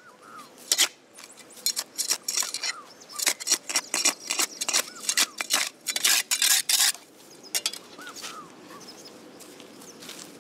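Steel spade blade scraping and chopping into packed soil and grass against a concrete kerb edge, a quick run of scrapes and knocks from about a second and a half in until about seven seconds, then dying down.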